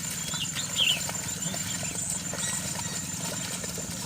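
A steady low engine hum, with a few short high chirps in the first second.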